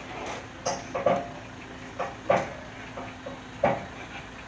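A series of about five sharp metal clanks and knocks at irregular intervals, over a faint steady hum.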